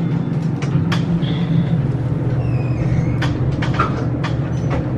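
Elevator car travelling: a steady low rumble, with short clicks and rattles scattered through it.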